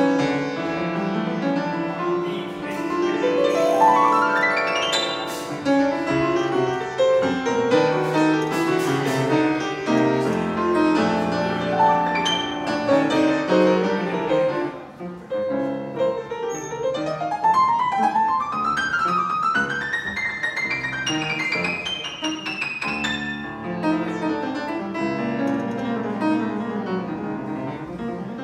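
Grand piano played solo in a warm-up: a dense stream of fast notes and chords, with a quick run rising up the keyboard about three seconds in and a longer climbing run in the second half.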